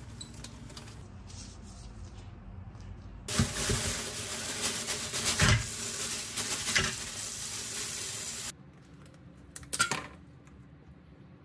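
Kitchen tap water running into a stainless steel sink and colander for about five seconds, starting a few seconds in and cutting off suddenly, with a few hard knocks as live blue crabs drop from a plastic bag into the steel colander. A brief clatter near the end.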